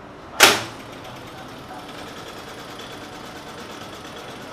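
Ship's engine-room machinery, diesel generators running, heard as a steady fast mechanical clatter. One loud, sharp clack comes about half a second in.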